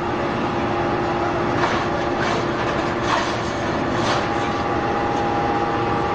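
Hydraulic scrap metal baler running: a steady machine hum with a constant tone, broken by a few short clanks or hisses about a second apart.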